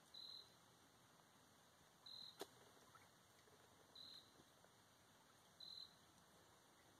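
Near silence with faint, short, high chirps from an insect, four in all, about one every two seconds. There is a single faint click a little over two seconds in.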